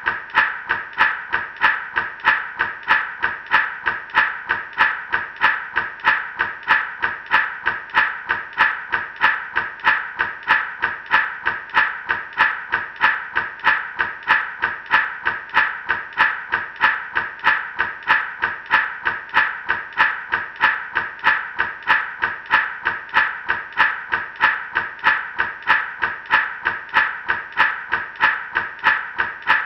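Gourd rattle shaken in a steady, even rhythm, about two and a half shakes a second, each shake a dry rattle of seeds inside the gourd.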